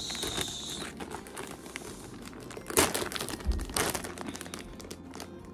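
Gift packaging crinkling and rustling as it is handled and unwrapped, with two louder rustles about three and four seconds in.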